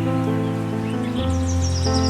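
Background music of slow, held synthesizer-like chords that shift a little over a second in, with a quick run of high bird chirps over it in the second half.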